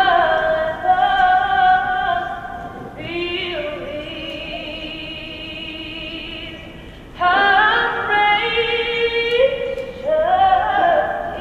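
A woman singing slow, long-held notes in an operatic style, without accompaniment, in four phrases of a few seconds each.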